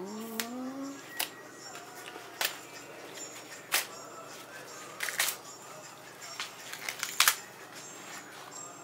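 Taro leaf stalks being snapped by hand, giving a series of sharp, crisp snaps at irregular intervals, with the leaves rustling between them. A short voice sound comes in the first second.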